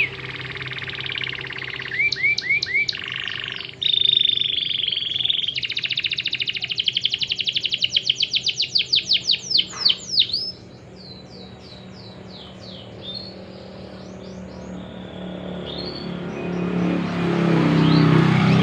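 Domestic canary singing a loud, varied song of fast rolling trills and rapid runs of repeated down-sweeping notes, which drops to softer, scattered phrases after about ten seconds. Background music plays underneath and swells near the end.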